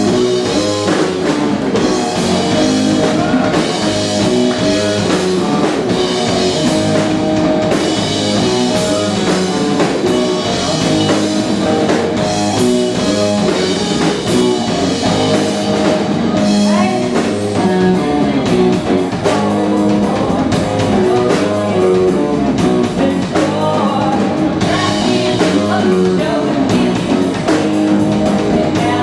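Rock band playing live: electric guitars and a drum kit, with a woman singing in parts.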